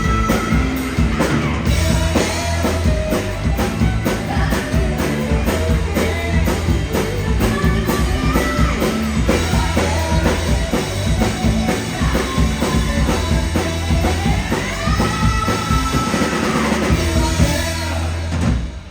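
Rock band playing with a singer, drum kit and electric guitar, a steady driving beat and long held vocal or guitar notes; the music cuts off sharply near the end.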